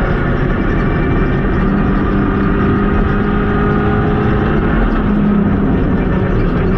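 Renault Clio Rally4's 1.3-litre turbocharged four-cylinder engine running under load at fairly steady high revs, heard from inside the cabin over road and tyre noise.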